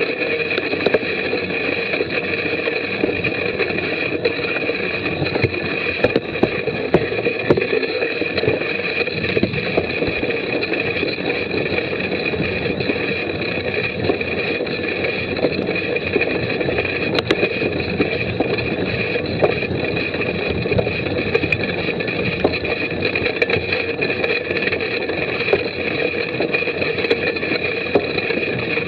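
Mountain bike ridden over a muddy, bumpy trail, heard from a camera riding on the bike: a steady muffled rumble and rattle of tyres and frame, with frequent small knocks from the bumps.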